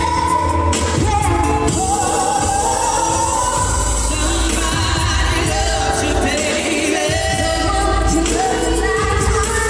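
Live band music with voices singing over a strong bass, the sung lines gliding up and down without a break.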